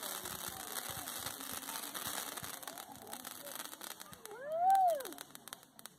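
Fireworks crackling: a dense run of tiny pops that thins out about four seconds in. Then one short rising-and-falling vocal call, the loudest sound.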